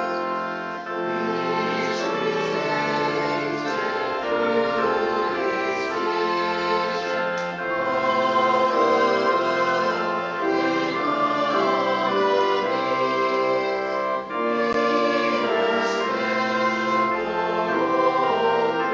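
A hymn sung by voices together over a sustained instrumental accompaniment, the chords changing steadily.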